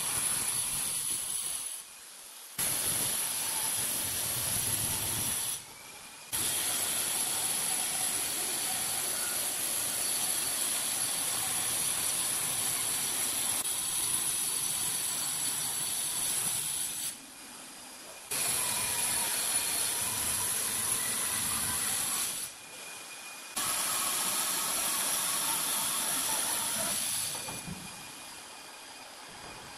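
Handheld electric angle grinder cutting and grinding a granite countertop: a steady high whine over a harsh hiss. It breaks off briefly several times and dies away near the end.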